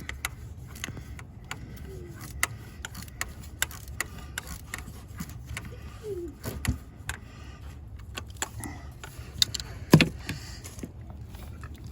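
Scattered metal clicks and knocks of hand tools working a spark plug out of the engine, with one sharp knock about ten seconds in, over a steady low rumble.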